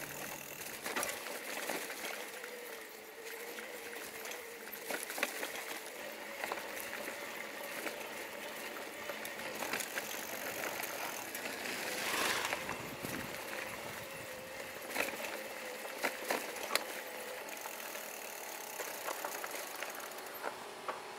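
E-bike's mechanical clicking and rattling, irregular sharp clicks over a hiss, with a faint steady tone underneath for most of the time.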